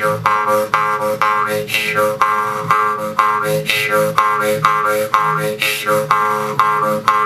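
Jew's harp played in a steady rhythm of about three plucks a second over an unchanging drone, its upper overtones sliding up and down to make the tune.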